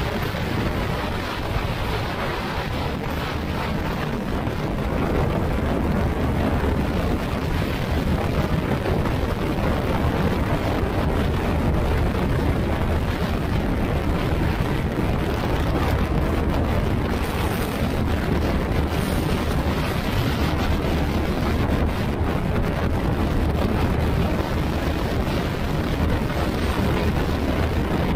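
Wind rushing over the microphone over the steady drone of a Yamaha NMAX scooter's single-cylinder engine, which is fitted with an RS8 CVT set and running at a constant road speed.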